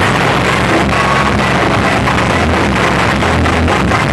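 Loud music played through large outdoor sound-system speaker rigs, with a heavy bass line.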